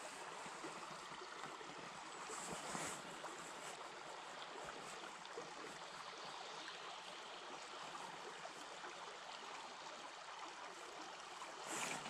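Small forest stream flowing: a faint, steady babble of water.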